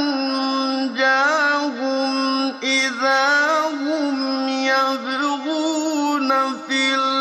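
A male reciter chanting the Quran in the slow, melodic tajweed style, drawing out long held notes with wavering ornaments in the pitch, broken only by short pauses about a second and two and a half seconds in.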